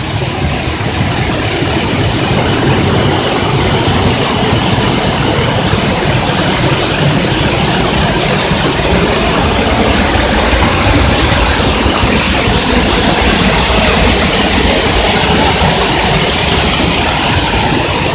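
Steady, loud rushing roar of a waterfall.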